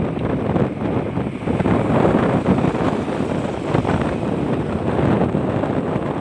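Wind buffeting the microphone of a moving motorcycle, a dense fluttering rush over the motorcycle's road noise.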